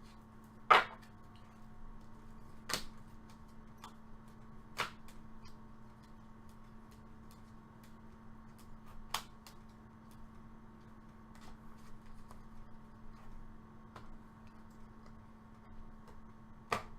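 Trading cards being handled and set down, with a few sharp clicks and taps spaced seconds apart, the loudest about a second in, over a faint steady hum.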